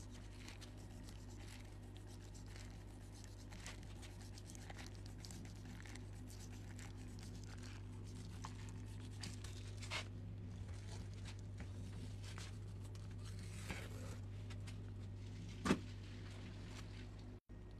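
Knife blade slicing and scraping along a raw salmon fillet, skin and membrane tearing away from the flesh in soft strokes, faint over a steady low hum. One sharper click near the end.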